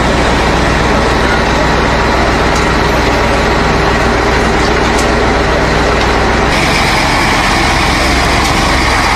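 Heavy truck engine running steadily with a low drone. The sound turns brighter and hissier about six and a half seconds in.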